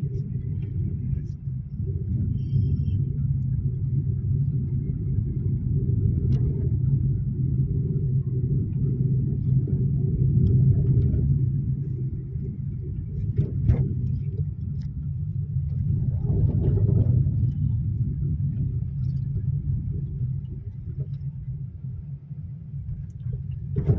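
Steady low rumble of a car's engine and tyres heard from inside the cabin while driving, with a couple of brief clicks.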